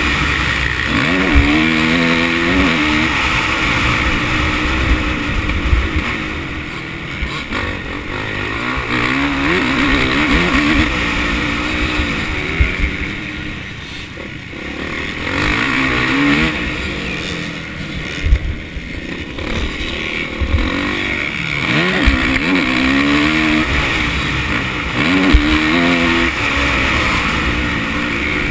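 Motocross bike engine revving up and shifting through the gears again and again as it is ridden around a dirt track, backing off twice in the middle. Heard from a helmet-mounted camera, with heavy wind rush and short thumps over the bumps.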